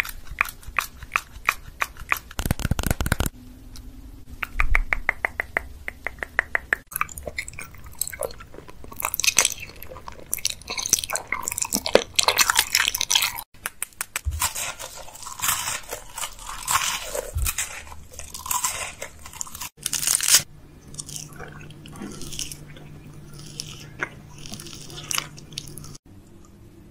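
Close-miked ASMR eating sounds: crisp wafer rolls and sweets being bitten, crunched and chewed, in a run of short clips. Near the start there is a quick run of even clicks.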